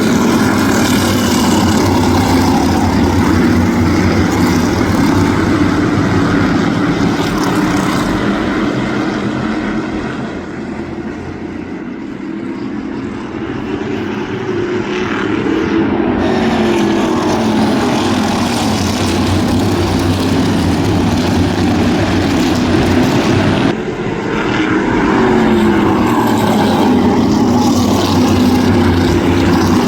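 A field of crate-engine V8 modified race cars running laps on an asphalt short track. The engine noise drops in pitch as cars pass. It eases off for a few seconds about ten seconds in, then builds again, and dips briefly once more near the end.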